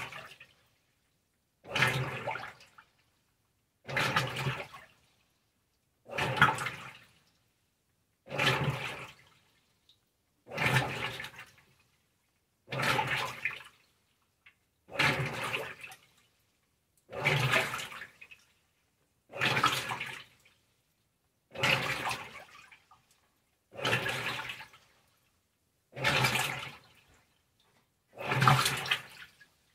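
Maytag Centennial top-load washer on its delicate wash cycle, agitating in gentle strokes: each stroke is about a second of motor hum and water and clothes swishing, repeating every two seconds or so with near silence between.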